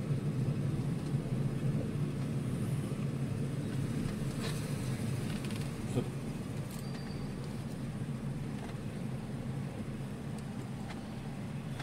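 A car's engine and road noise heard from inside the cabin while driving slowly: a steady low hum with a few faint clicks.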